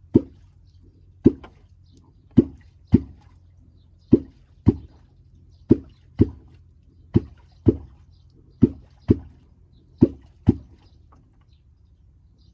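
Catfish clonk (vábnička) struck on the water surface, making deep plops in pairs: seven pairs, one pair about every one and a half seconds. The clonking calls wels catfish up to the bait.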